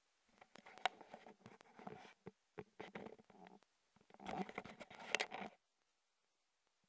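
Scratchy rustling and crackling in irregular bursts with a few sharp clicks, from the camera being handled and moved. It stops about two thirds of the way through.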